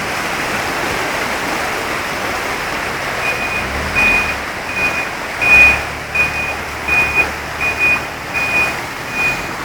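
A vehicle's reversing alarm beeping evenly, about three beeps every two seconds, starting about three seconds in, over a steady rush of water and rain. A low engine rumble joins about halfway through.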